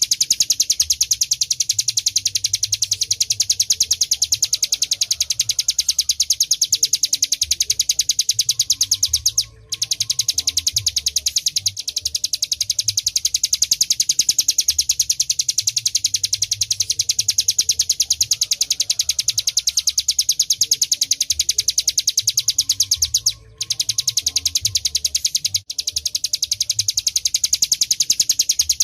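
Ciblek gunung, a prinia, singing a long, very fast run of high, rapidly repeated notes. The run breaks off twice for a moment, about a third of the way in and again about four-fifths of the way in.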